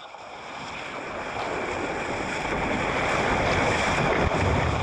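Rushing water like surf or rapids, a steady hiss that swells louder over several seconds and then drops away near the end.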